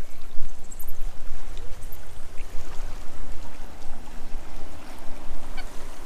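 Wind buffeting the microphone in an unsteady low rumble, with a few faint bird calls.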